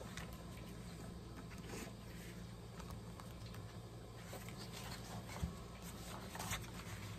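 Paper and cardstock handled on a craft table, rustling and sliding, with a single soft knock about five seconds in and the pages of a paperback planner riffled near the end, over a low steady hum.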